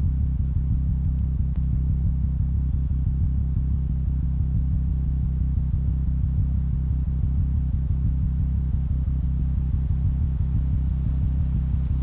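A steady low rumble made of deep, even bands, with nothing higher over it.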